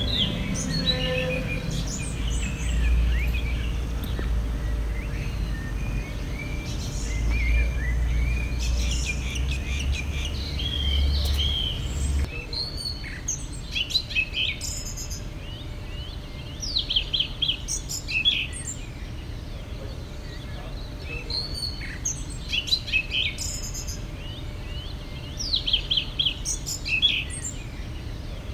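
Small birds chirping and trilling in short repeated phrases. A low steady rumble sits under them for the first twelve seconds or so and then stops abruptly.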